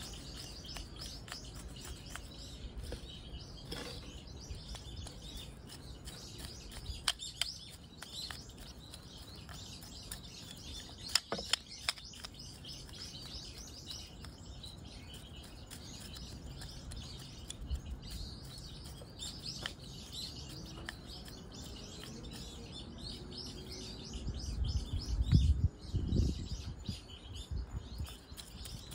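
Small birds chirping steadily in the background. Over them come a few sharp clicks and scrapes from a metal root hook working through the soil of a pine's root ball, about 7 and 11 seconds in. The loudest sounds are low thumps and rustling of the root ball being handled around 25 seconds in.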